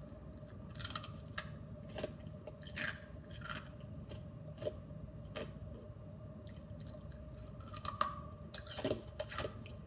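Someone chewing and crunching ice in the mouth: short, separate crunches at irregular intervals.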